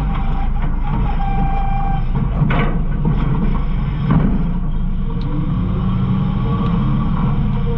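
Garbage truck running, heard from inside its hopper: a steady low rumble, with a held whine near the start and two sharp clanks about two and a half and four seconds in.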